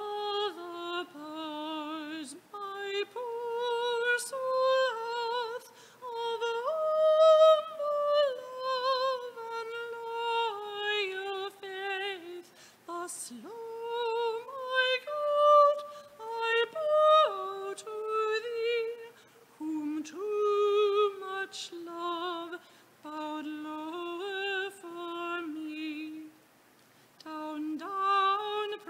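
A solo woman's voice singing a slow hymn, holding long notes with vibrato, in phrases broken by short pauses.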